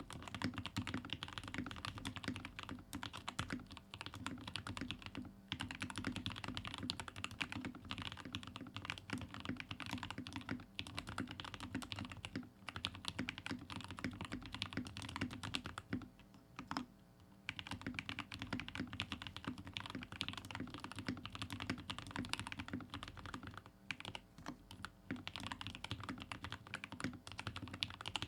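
Royal Kludge RK61 60% mechanical keyboard with stock Gateron Milky Yellow linear switches, GMK ABS keycaps, a tape-modded and foam-filled case and lubed stabilizers, typed on in a fast, steady stream of keystrokes. There is a brief pause in the typing a little past halfway.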